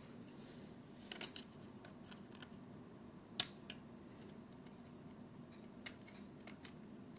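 Scattered small clicks and taps of hands working at the casing of a small LED pocket light while trying to take its frame apart, with a short cluster about a second in and one sharper click a little after the middle.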